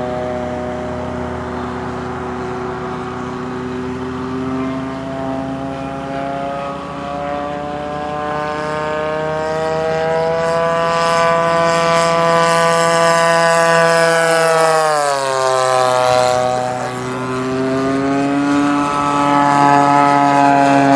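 Radio-controlled model airplane's engine and propeller flying past: a steady buzzing note that rises slowly as the plane approaches, drops sharply in pitch about fifteen seconds in as it passes, then climbs again.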